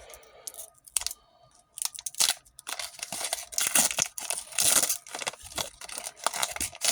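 Foil wrapper of a Pokémon booster pack being torn open and crinkled: a dense run of crackling rips starting about two seconds in.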